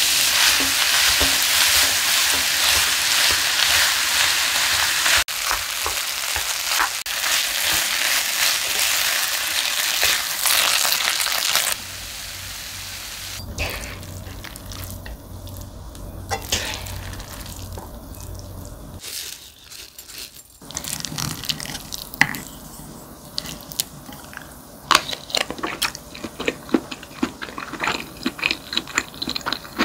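Fried rice frying in a pan, with a loud, steady sizzle for about the first twelve seconds. It then turns much quieter, with scattered taps and scrapes of stirring that come more often near the end.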